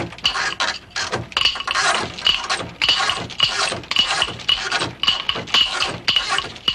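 Rhythmic rattling and clinking, about three strokes a second, each stroke with a short metallic ring.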